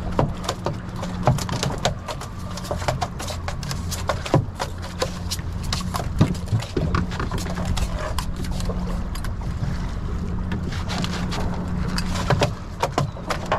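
A freshly caught fish flopping on the fiberglass deck of a small skiff, making irregular knocks and slaps, over a steady low rumble.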